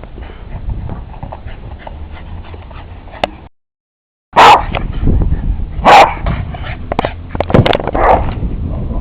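A dog barking: after a short dropout, two loud barks about a second and a half apart, followed by smaller yips and knocks.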